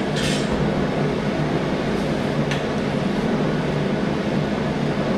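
Steady machine hum with fan-like noise, unchanged throughout, with a faint click about two and a half seconds in.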